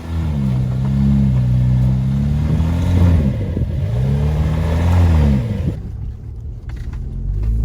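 Jeep engine revving up and easing off twice, then dropping to a duller, lower rumble about six seconds in.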